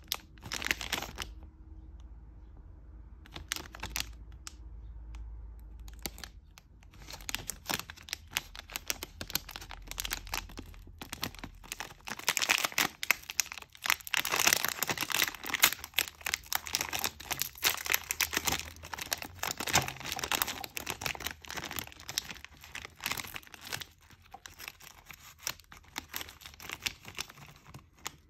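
Metallised plastic inner pouch of a Pocky pack crinkling and being torn open by hand. Scattered crackles come first, then dense crackling and ripping, loudest about halfway through.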